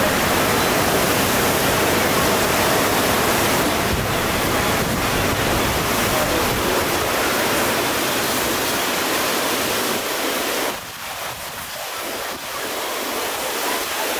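Steady rushing wash of ocean surf as waves break and roll in, a continuous noise that thins briefly about eleven seconds in.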